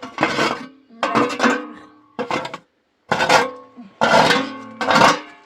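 Music: a plucked string instrument strumming loud chords, each stroke ringing and fading before the next, with short gaps between them.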